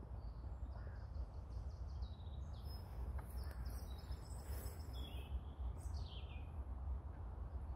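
Outdoor background noise: a steady low rumble on the microphone, with faint bird chirps throughout and a short falling bird call about six seconds in.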